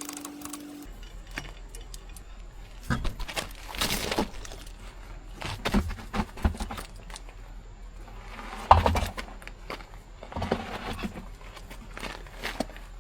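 Hand tools and metal parts clinking and knocking at irregular intervals while a car wheel and brake are taken apart. The loudest knock comes about nine seconds in.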